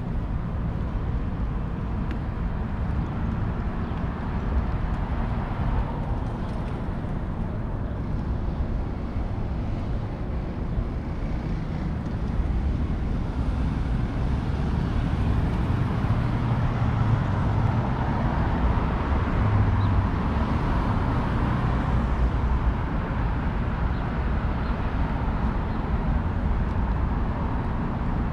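City street traffic noise from the road beside the sidewalk, a steady rumble of passing cars that grows louder for several seconds in the middle as vehicles go by.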